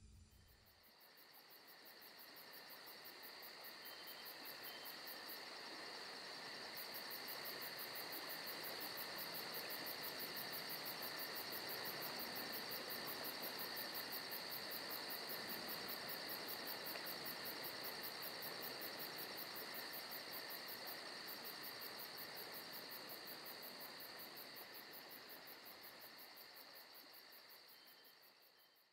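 A chorus of night insects, crickets, chirring steadily in a fast pulse. It fades in over the first several seconds and fades out near the end.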